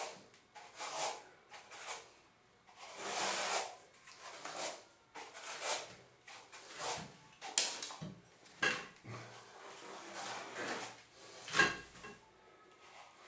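A 10-inch texturing comb with a wooden handle is drawn through thick wet artex texture on a wall, making a run of scraping strokes about one a second, with a couple of sharper clicks among them.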